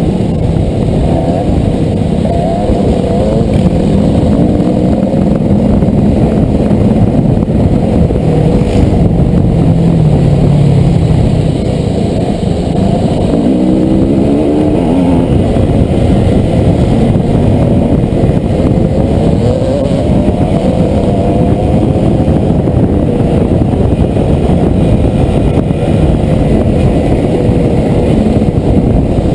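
Dirt bike engine running under way, its revs rising and falling with the throttle, heard close from the rider's helmet.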